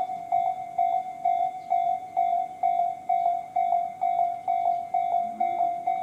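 Japanese railway level-crossing electronic warning bell, the Tobu-type "sound C" alarm on both sides, ringing: one tone struck a little over twice a second, the signal that a train is approaching.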